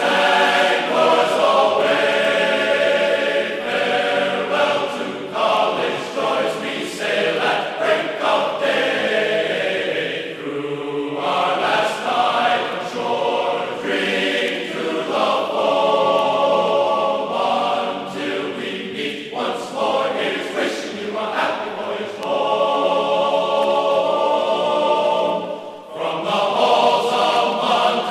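Choral music: many voices singing together in held chords, with a short drop in level near the end.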